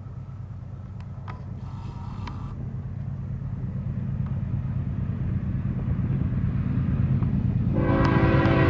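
Freight train led by two GE diesel locomotives, an ES44DC and a C44-9W, approaching under power; their low engine rumble grows steadily louder. Near the end the lead locomotive's air horn starts to blow a steady chord.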